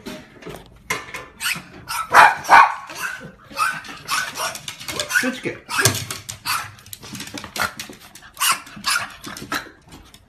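Small fluffy dog barking over and over in short barks, loudest about two seconds in.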